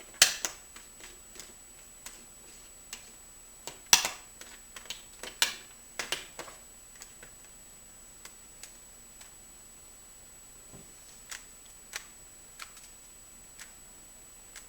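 Plastic clicks and clacks of a Rubik's cube's faces being turned by hand: a quick run of turns over the first seven seconds, then occasional single clicks.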